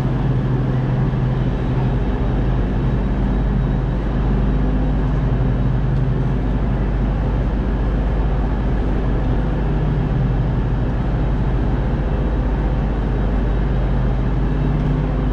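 Steady low hum and rumble of a train standing in the station, with the noise of the station around it.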